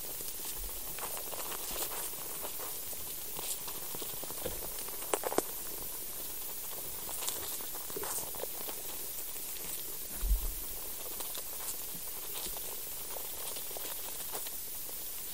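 Sounds of soil life recorded below ground: a steady hiss with scattered faint scratching and clicking. A few sharper clicks come about five seconds in, and a low thump about ten seconds in.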